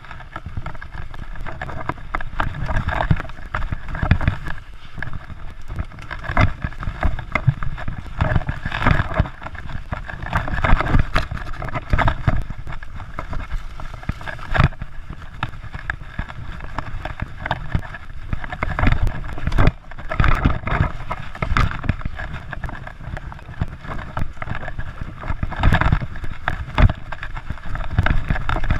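Mountain bike ridden fast over a dirt trail: a steady rumble of tyres on dirt, with the bike rattling and knocking over roots and bumps, and knocking down a run of steps near the end.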